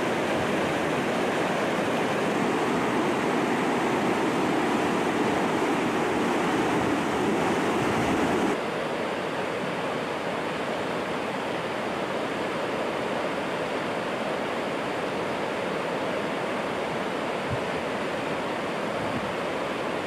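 Rushing whitewater of a mountain river tumbling over rocks, a steady noise of water. A little over eight seconds in, it becomes slightly quieter and duller, as if heard from further away.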